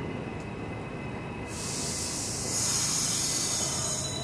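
A standing New York subway train with its doors open gives a steady low hum. Then a hiss of air from the train's pneumatic system starts about a second and a half in and grows louder about halfway through.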